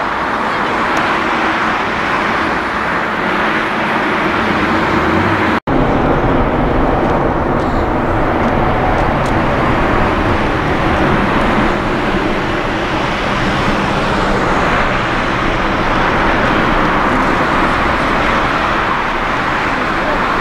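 The twin GE90 jet engines of a taxiing Boeing 777-300ER airliner, a loud, steady rush. The sound drops out for an instant about five and a half seconds in, where the recording cuts.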